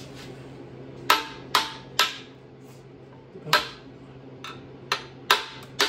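The aluminium back of a hammer striking the top edge of a Triumph TR4 cylinder liner to drive it down out of the engine block: about seven sharp metallic knocks at an uneven pace, some leaving a short ring.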